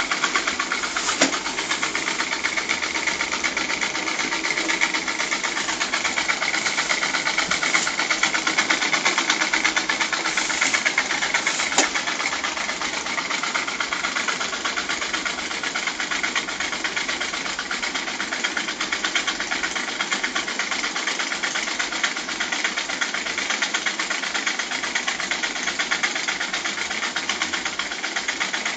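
Small experimental single-acting rotary-valve steam engine running steadily on steam from a small vertical boiler, making a rapid, even mechanical beat.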